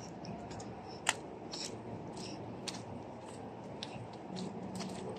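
Quiet footsteps and light taps of someone walking with a phone: scattered sharp clicks about every half second, the loudest about a second in, over a steady low street hiss.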